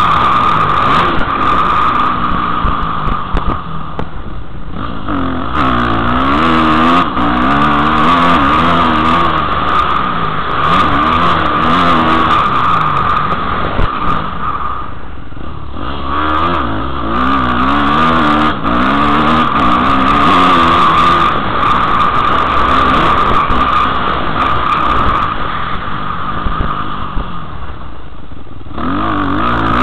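Motocross dirt bike engine revving up and down over and over with the throttle, heard from a helmet-mounted camera. The engine note falls away briefly about four seconds in, again about halfway through, and near the end.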